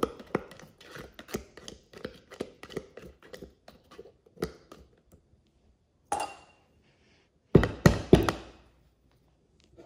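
A debubbling tool poking down through apple pie filling in a glass mason jar, clicking and tapping against the glass several times a second for about five seconds. A few louder knocks come near the end as the jar is handled.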